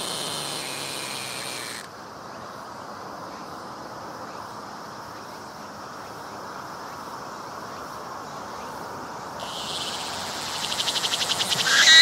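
Cicada on the tree trunk close by: its song fades and stops about two seconds in, leaving a steady low hiss with faint distant insect sound. About nine and a half seconds in it starts singing again, as a rapid, even pulsing that grows louder near the end.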